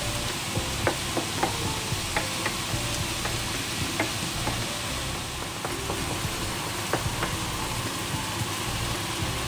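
Ground meat and diced zucchini sizzling in a frying pan as a wooden spatula stirs them, with sharp clicks now and then as the spatula knocks and scrapes against the pan.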